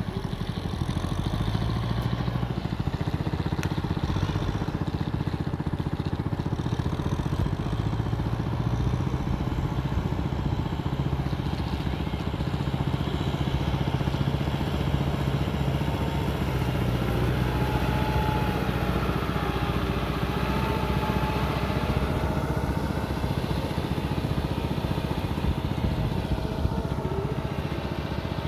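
Tractor engine running steadily with a fast, low chugging while it pulls a roller through a flooded rice paddy.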